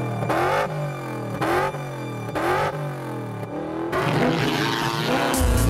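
An engine revved in repeated blips, about one a second, each rising and falling in pitch. Near the end a deep bass beat of music comes in.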